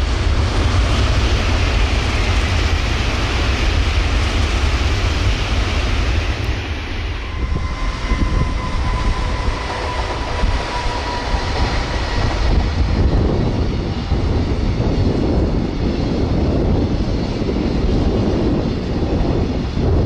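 A train passing at high speed: a loud, continuous rush of rail and air noise, with a faint whine whose pitch shifts about seven seconds in as it goes by.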